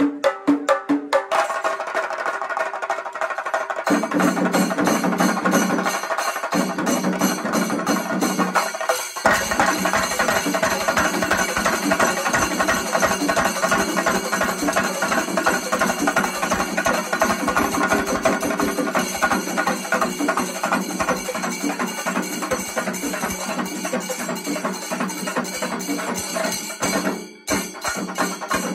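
Singari melam: a Kerala percussion ensemble of many chenda drums beaten with sticks and ilathalam hand cymbals clashing, playing a fast, dense rhythm. It starts abruptly with a few separate strokes, and breaks off briefly near the end before resuming.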